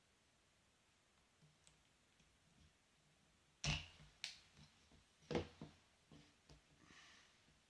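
Sharp plastic clicks and knocks from fitting a propeller onto a Syma X8HG drone's motor: two loud ones about three and a half and five seconds in, with a few lighter taps after them.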